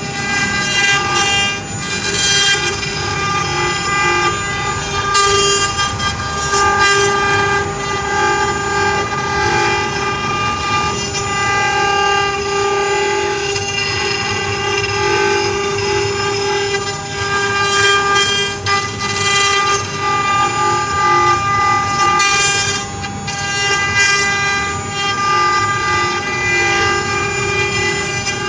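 CNC wood-carving router's spindle whining steadily as it cuts wood, with short bursts of cutting hiss now and then.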